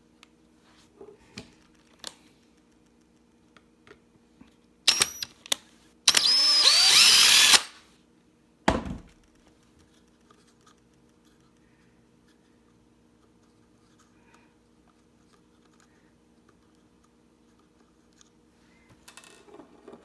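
Small power drill/driver spinning in short bursts to back out the Phillips screws on a Honda ignition lock's transponder cap: two brief blips, then a run of about a second and a half with the motor whine rising and falling, and one more short burst. A faint steady hum runs underneath.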